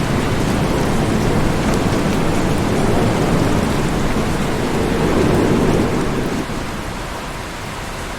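Steady heavy rain with a rolling rumble of thunder that builds and fades away about six seconds in, leaving a lighter, even hiss of rain.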